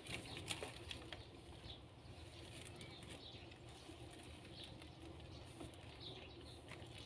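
Faint sounds of newborn kittens suckling at their mother: a few soft clicks in the first second, then scattered faint squeaks and rustling against a low steady hum.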